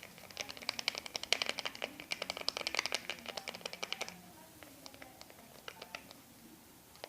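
A stirrer beating a soapy slime mixture in a container to whip up bubbles, its fast clicking and tapping against the side coming about ten times a second. The beating stops about four seconds in, leaving only a few scattered taps.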